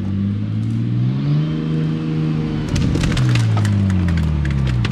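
Off-road 4x4's engine pulling under load, its pitch rising over the first second and a half and falling again after about three seconds. From about halfway, dead sticks and branches crack and snap under the tyres.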